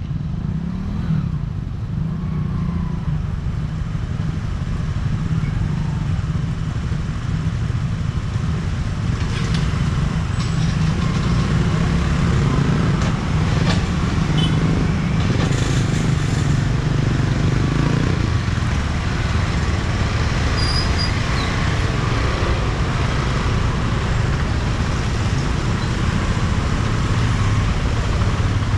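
Motorcycles, scooters and small cars idling and pulling away in a stream of traffic: a steady mixed engine hum that grows louder from about ten seconds in as the queued vehicles move off.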